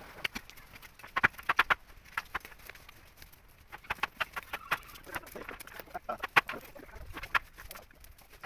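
Birds giving short, clicky calls in irregular clusters.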